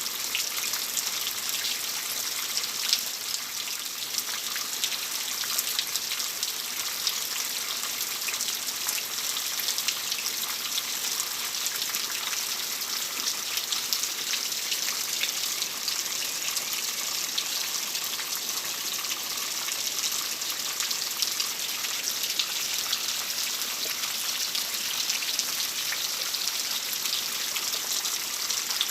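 Steady rain falling: an even hiss made of many small drop ticks, with no thunder.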